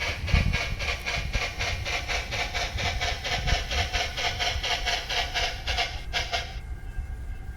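Sound decoder in a Bachmann EM-1 model steam locomotive playing steam exhaust chuffs, about five a second, as the locomotive runs forward. The chuffing drops out for about a second near the end, over a low rumble.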